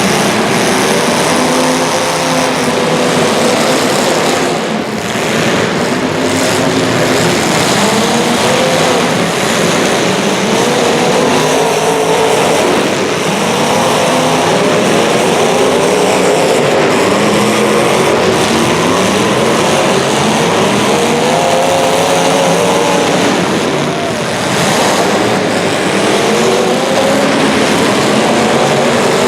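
Several small racing engines running together, their pitch rising and falling over and over as the vehicles accelerate and lift around the track.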